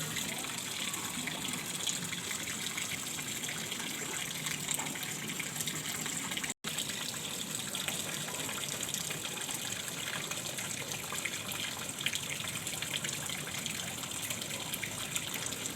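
Steady rushing of flowing water, broken by a momentary dropout just over six seconds in.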